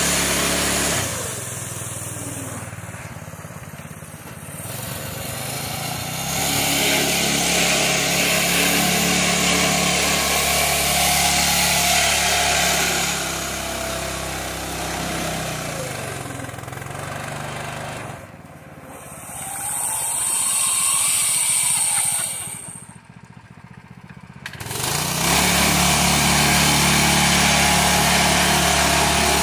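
Harbor Freight Predator 212 single-cylinder engine on a small tractor running as the tractor works through water, its note shifting up and down with throttle and load. The engine sound drops away briefly twice, about two-thirds of the way in and again about three-quarters of the way in.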